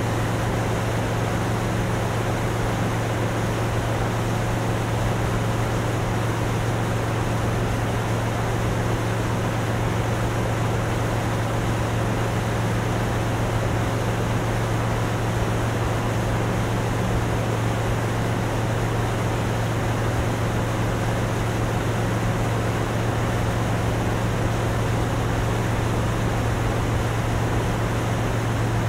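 Motorboat running steadily under way, a constant low engine drone over a steady hiss of water and wind.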